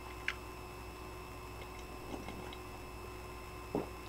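Quiet room with a steady faint electrical hum; a single light click about a third of a second in, from a metal spoon against a ceramic soup bowl, a few fainter ticks in the middle, and a short soft eating sound near the end.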